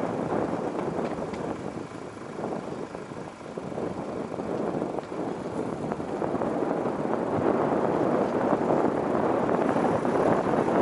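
Car on the move: a steady rush of tyre and wind noise with no clear engine note, dipping a couple of seconds in and then growing steadily louder toward the end.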